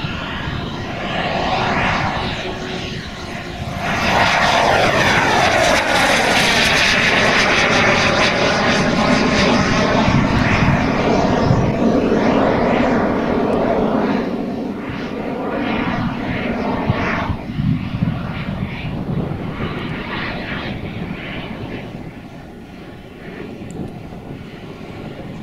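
Four model gas-turbine jet engines of a large RC Avro Vulcan running in flight. The roar swells sharply about four seconds in as the model passes close, holds loud for about ten seconds, then fades as it flies away.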